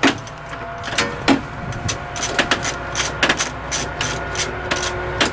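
Hand tools clicking and tapping against the kiosk's metal as its fasteners are worked loose, sparse at first and then several sharp clicks a second, over a steady low hum.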